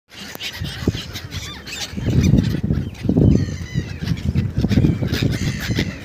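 A flock of small gulls calling with many short, high, harsh cries as they wheel over the water to be fed. Several bursts of low rumble come and go beneath the calls.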